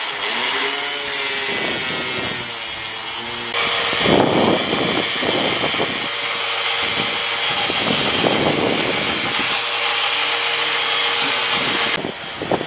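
A hand tool rasping and scraping against fiberglass in repeated, irregular strokes over a steady hiss: repair work on a damaged section of the boat's deck edge.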